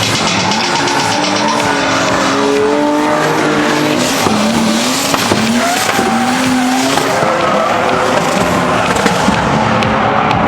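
Drift car engines revving hard, their pitch rising and falling again and again, over the steady hiss and squeal of tyres skidding sideways.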